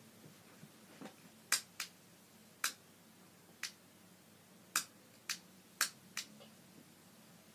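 Sharp clicks, about nine of them at uneven intervals, over a faint steady low hum.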